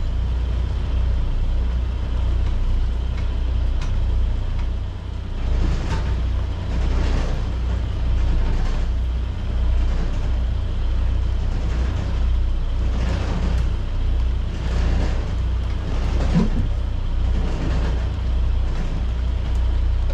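Steady low rumble aboard a sailing catamaran at anchor, with a noisy hiss that surges and eases every second or two, and a few faint knocks.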